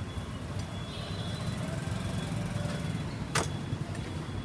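Steady low background rumble with a single sharp tap of a metal spatula on a flat iron griddle about three and a half seconds in.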